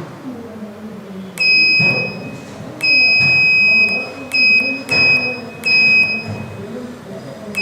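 Small electronic buzzer on a breadboard test circuit beeping in about six high, steady-pitched beeps of uneven length, switched on and off irregularly.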